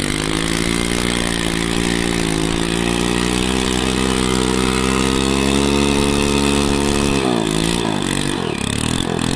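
Small commuter motorcycle engine held at high revs in gear while its rear wheel spins in shallow river water in a burnout, with the hiss and splash of thrown-up water. Near the end the revs drop sharply twice and climb back.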